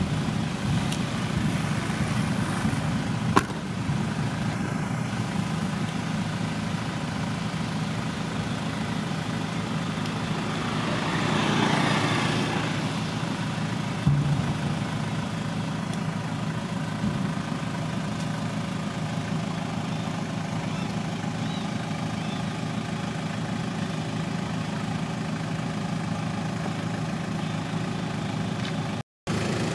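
Motor vehicle engine idling with a steady hum, swelling louder for a couple of seconds about halfway through. A single sharp click about three seconds in, and the sound cuts out briefly near the end.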